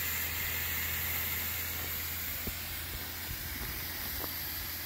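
Steady hiss of steam blowing off from the safety valve of a 5-inch gauge live steam model Garratt locomotive, which has just lifted at about 95 psi as the boiler reaches working pressure.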